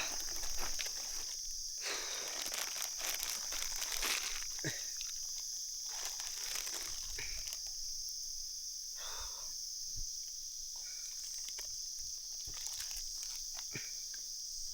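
Footsteps rustling and crunching through dry leaves and undergrowth on a forest floor, in uneven scattered crackles, over a steady high-pitched drone.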